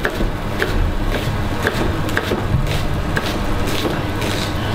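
Kitchen knife chopping through a halved onion on a plastic chopping board, dicing it finely: even knife taps about two a second, over a steady low hum.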